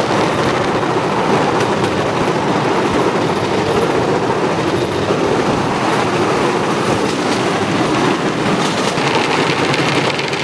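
Cambodian bamboo train (norry) running at speed along the rails: a steady, loud rattling rumble from its wheels on the track and its small motor.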